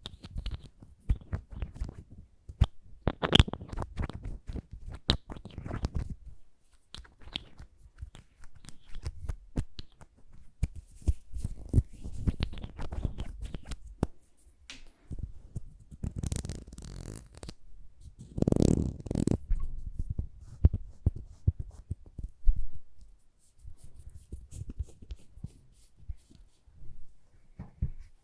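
Close-miked ASMR handling of lip balm: scattered sharp clicks and taps with soft crackling rubbing, in clusters separated by short pauses. The loudest rubbing comes a little past the middle.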